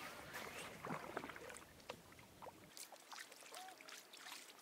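Faint paddling: a double-bladed kayak paddle dipping into calm water, with scattered small splashes and drips from the blades.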